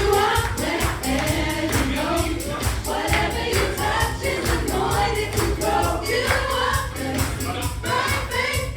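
Gospel worship song sung by a choir over a live band, with a steady bass and percussion keeping an even beat.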